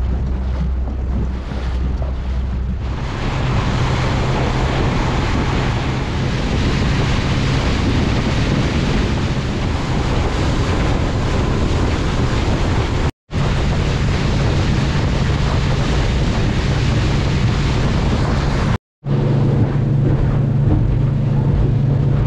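Lake water taxi's outboard motor running at speed, a steady low hum under loud wind on the microphone and rushing water; the hum rises in pitch about three seconds in. The sound cuts out for an instant twice.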